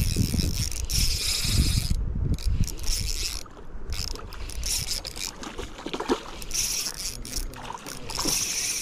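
Spinning reel being cranked to retrieve a lure: the rotor and gears whir in several short spurts with brief pauses, then go quieter for a few seconds before cranking resumes near the end.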